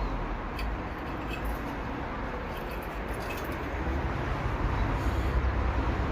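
BMW engine running with a failed connecting rod on cylinder 1, the rod knock of spun bearings; it gets louder toward the end.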